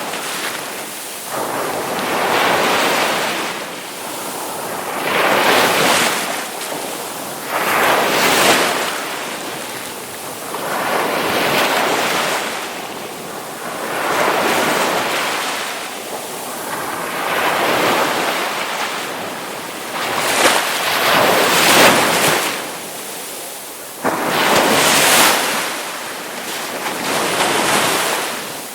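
Ocean waves crashing on the shore, one after another every two to three seconds, each a rushing hiss that swells and then fades as the water washes back.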